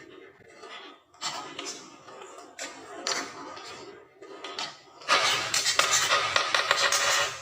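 Marbles rolling and clicking along a marble run track, with scattered knocks, then a loud, dense clatter for about two seconds starting about five seconds in.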